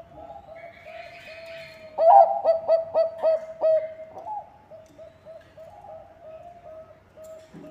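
Zebra dove (Bangkok perkutut) cooing: a run of short, quick coo notes, breaking about two seconds in into a louder burst of about six strong notes, then going back to soft rapid coos.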